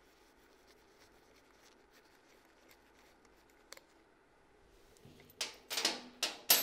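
Quiet room tone with a few light clicks, then in the last second and a half a quick run of sharp scrapes and knocks as parts are handled, the loudest just before the end.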